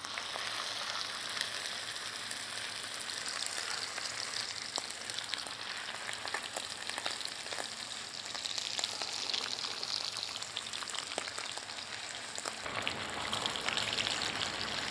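Raw beef steaks sizzling in a hot frying pan of fat, with a dense crackle of small spits. The sizzle starts suddenly as the first steak goes in and grows louder near the end as more steaks fry.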